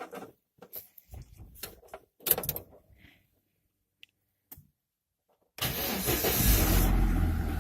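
A few scattered clicks and knocks, then about five and a half seconds in the Chevrolet Niva's engine starts abruptly and keeps running.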